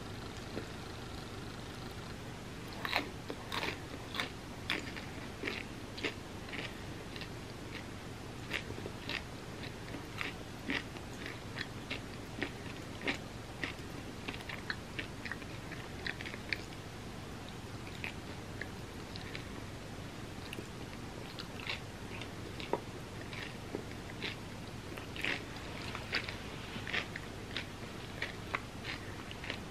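Close-up chewing and biting of a homemade vegan candy bar: crunching of puffed rice and roasted peanuts under a chocolate coating, with wet mouth sounds. The crunches come as irregular sharp crackles, one or two a second, thicker near the end.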